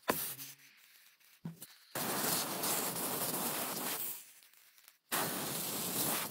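A pressurised spray hissing at a brake caliper in two long bursts of about two seconds each, the first starting about two seconds in; a sharp click right at the start.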